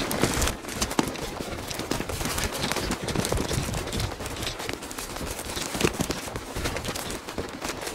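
Footsteps crunching irregularly over dry twigs and brush debris, with many sharp cracks and snaps.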